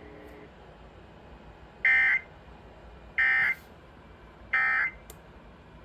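NOAA Weather Radio SAME end-of-message code: three short bursts of buzzing digital data tones about a second apart, over faint receiver hiss, signalling the end of the alert transmission.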